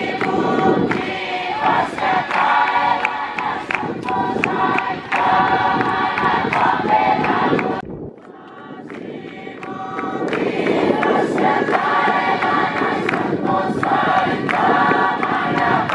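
A large crowd singing together, many voices at once. The singing breaks off abruptly about halfway through and swells back in over a couple of seconds.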